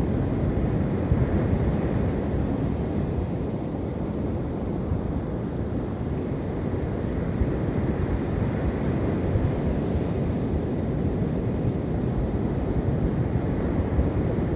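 Sea surf on a beach mixed with wind buffeting the microphone: a steady rushing noise, heaviest in the low end, with no single wave or gust standing out.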